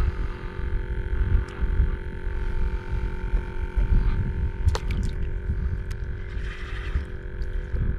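Gusty wind buffeting the microphone, an uneven low rumble, over a steady faint electrical hum. A few sharp clicks, the clearest a little past halfway.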